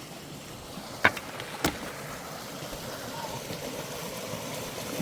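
Steady rain and culvert water flowing, slowly growing louder, broken by two sharp clicks about a second in, half a second apart.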